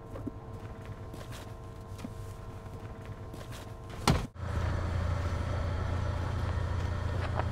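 Steady electrical hum with faint scattered ticks. About four seconds in comes a sharp click and a brief drop-out, then a louder low hum takes over and holds steady.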